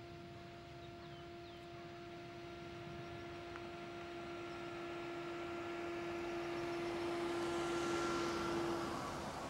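A stretch limousine driving slowly toward and past, its engine and tyre noise swelling to its loudest about eight seconds in and then falling away. A steady hum runs underneath and stops shortly before the end.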